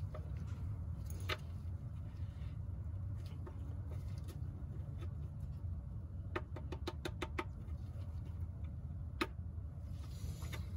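Light clicks from a plastic oil drain plug being turned into the oil pan with a drain plug driver: a few single clicks and a quick run of about eight clicks about six seconds in, over a steady low hum.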